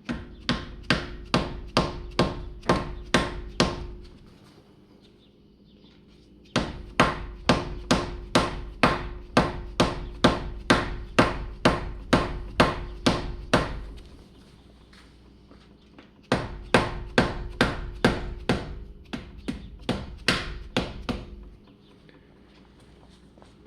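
Dead blow hammer striking the protective cap on a -8 AN breather fitting, driving the press-in fitting into the valve cover. The blows come in rapid, even runs of about three a second, three runs with short pauses between them.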